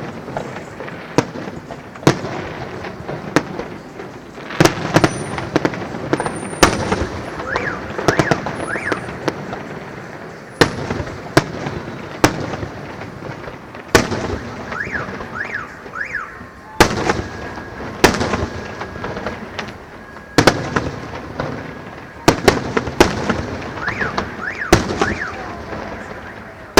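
Fireworks display: aerial shells bursting in a rapid irregular series of sharp bangs, each ringing out briefly.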